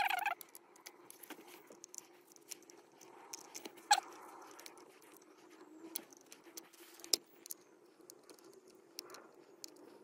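Light scattered clicks and taps of a small tool and a removed gear-shift lever assembly's plastic and metal parts being handled and worked on, with a sharper click about four seconds in.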